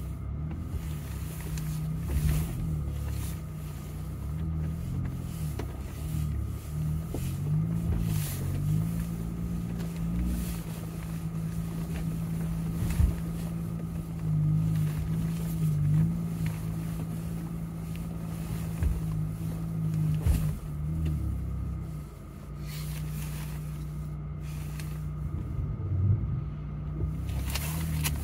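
Jeep engine running at low revs, heard from inside the cab while crawling over a rocky trail, its low drone rising and falling with the throttle. Scattered knocks and clunks from the tyres and suspension on the rocks.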